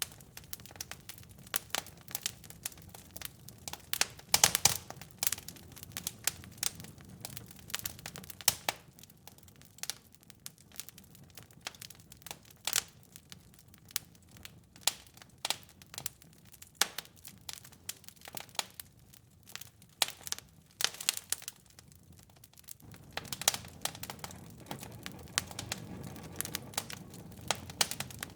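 Wood fire in a fireplace crackling, with frequent sharp pops and snaps, the loudest cluster about four seconds in. A low rumble of the flames underneath fades out for a stretch in the middle and returns about two-thirds of the way through.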